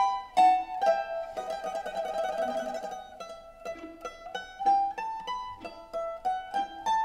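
Background music: a plucked string instrument picking out a melody in separate notes, with a fast tremolo on held notes between about one and three seconds in.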